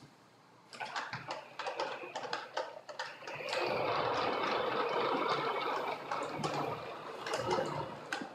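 Pepper humanoid robot's wheel motors and joint servos whirring as it turns and drives across a wooden floor. A run of clicks comes first, then a steady whir from about three seconds in that eases off near the end.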